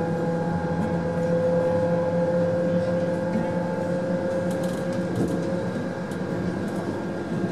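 Electric train running, heard from inside the carriage: a steady rolling rumble with a steady motor whine that sinks slightly in pitch and fades about two thirds of the way through.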